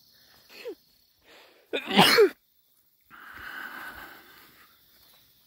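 A single loud, sharp sneeze about two seconds in, with a short falling-pitched sound shortly before it. About a second of softer rustling noise follows.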